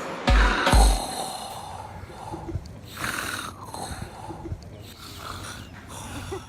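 A man snoring, a string of snores about every second or so. In the first second two last bass-drum beats of a remix built from the snores land under it.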